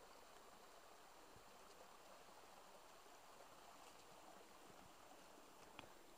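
A small stream running over rocks, faint and steady.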